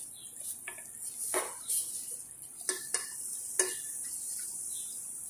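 Wooden spatula stirring shrimp in a frying pan, knocking against the pan about six times, over the steady bubbling hiss of 7-Up simmering around them.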